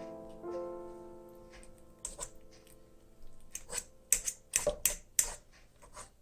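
Soft piano background music with held notes that fade away over the first two seconds, followed by a series of about a dozen sharp clicks and knocks.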